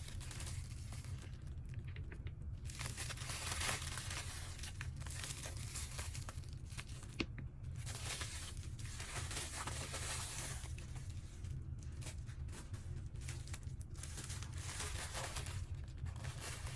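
Packaging being handled and opened: crinkling and tearing of wrapping in repeated stretches, with a single sharp click about seven seconds in.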